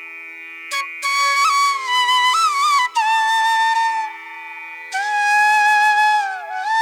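Background music: a solo flute melody of held, ornamented notes with small pitch bends over a steady drone, with a long held note about five seconds in that slides downward.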